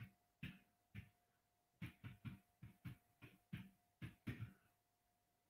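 Faint typing on a keyboard: about a dozen short taps at an uneven pace, bunched closer together in the middle and later part. A faint steady whine sits underneath.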